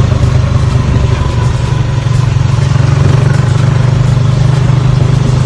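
Engine of a small open-sided passenger vehicle running steadily while riding along, heard from inside, with wind rushing past the open side.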